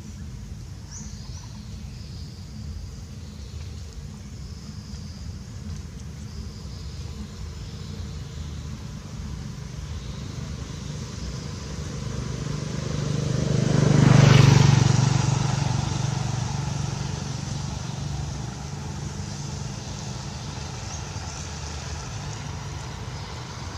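A motor vehicle drives past, growing louder to a peak about halfway through and then fading away, over a steady low rumble.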